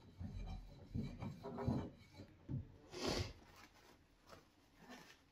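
Light irregular rubbing and knocking of a steel plane iron being handled on a diamond sharpening plate, then a short swish about three seconds in as the iron is wiped with a cloth.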